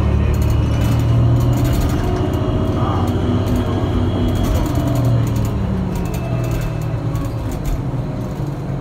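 Cabin sound of a 2009 New Flyer DE62LFA diesel-electric hybrid articulated bus under way: a steady low hum from its Cummins ISL diesel and Allison EP-50 hybrid drive, with road noise. The hum swells and eases slightly.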